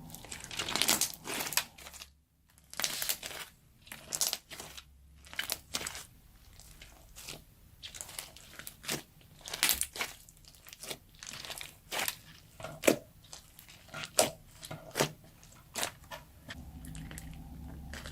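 Crunchy slime full of slushy beads being squeezed and pressed by hand, giving irregular crackling, crunching pops in quick clusters.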